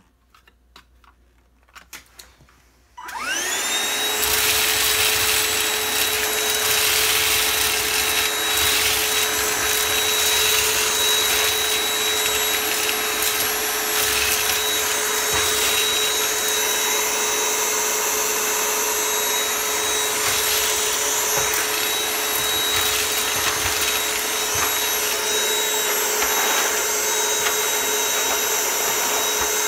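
A vacuum cleaner switches on about three seconds in, its motor whining up to speed, then runs steadily. Scattered crackling ticks of beans being sucked up rattle through it.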